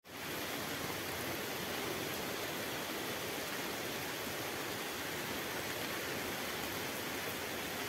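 Heavy monsoon rain falling steadily, an even, unbroken hiss.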